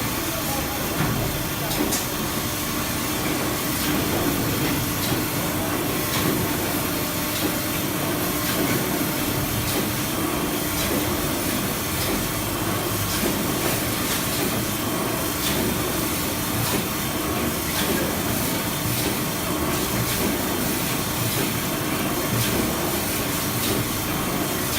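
Automatic tissue paper log band saw cutting machine running steadily, a constant mechanical noise with a low hum and occasional faint clicks.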